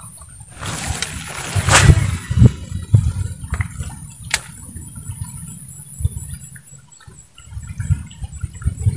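A lure cast on a Shimano SLX DC baitcasting reel: a rushing sound of line paying out begins about half a second in and ends with a sharp splash of the lure hitting the water near the two-second mark. Scattered clicks and low thumps follow as the reel is worked.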